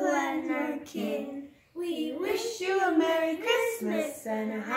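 A woman and young children singing together without accompaniment, holding long notes, with a brief pause about a second and a half in.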